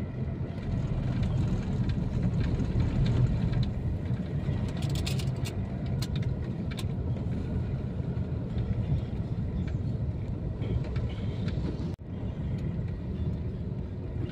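Steady engine and road rumble of a moving car, heard inside its cabin, with a few faint clicks about five to seven seconds in.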